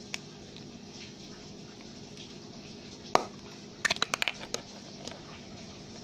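Plastic Easter egg being pulled open: one sharp click about three seconds in, then a quick run of snapping clicks as the two halves come apart. Under it a steady hiss of rain.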